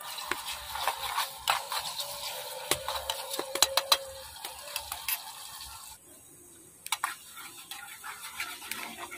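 A metal spoon stirring chopped garlic, shallots and red chilli in oil in a small aluminium pan over a wood fire. It gives sharp clinks against the pan, most of them in the first four seconds.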